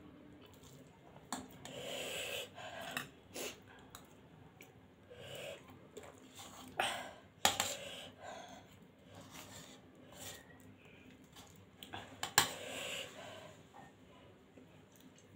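Close-up eating sounds of spicy instant noodles, with slurping and breathy mouth noises, and sharp clinks of a metal fork and spoon against a stainless steel plate, the loudest about seven and twelve seconds in.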